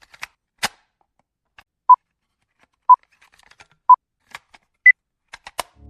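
Electronic countdown beeps: three short beeps one second apart, then a fourth, higher beep a second later, with a few faint clicks between them.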